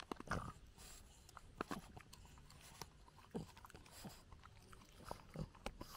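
French bulldog gnawing on a wooden stick: irregular crunching and cracking of wood between its teeth.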